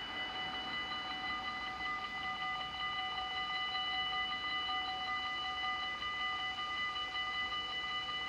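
Dutch level-crossing warning bells ringing steadily while the red lights flash, signalling that a train is coming and the barriers are about to close.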